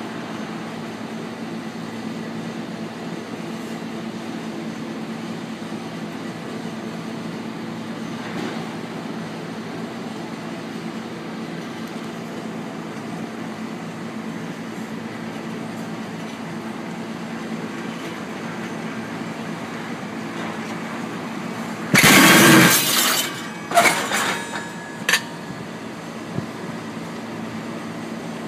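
Slow-rolling freight wagon wheel running onto a Hemmschuh (rail skid shoe): one loud crash lasting about a second, then a few shorter knocks over the next three seconds as the wagon is brought to a stop. A steady low hum sits underneath.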